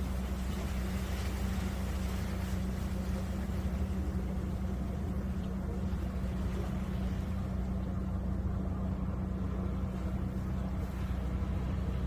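A steady low engine hum with a deep rumble beneath it, unchanging throughout.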